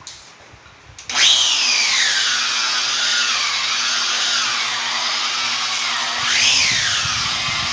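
An electric power tool starts about a second in and runs loud and steady. Its motor whine sags and recovers in pitch several times as the tool is pressed into the work.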